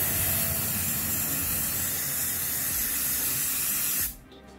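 Aerosol brake cleaner spraying in one continuous burst, a steady hiss that cuts off suddenly about four seconds in.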